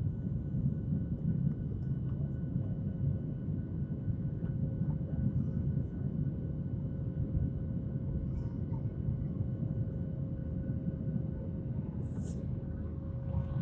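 Boeing jet airliner in flight, heard from inside the cabin: a steady low rumble of the engines and airflow with a faint steady whine above it.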